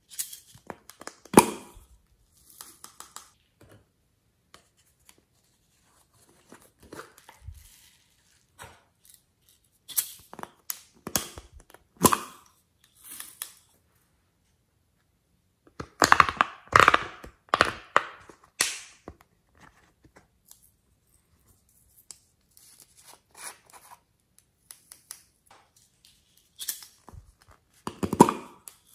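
Small plastic containers being handled, their lids pulled off and their toppings (sprinkles, glitter, foam beads) tipped onto slime: a string of short crackles, clicks and scrapes with silent gaps between them, busiest about halfway through and again near the end.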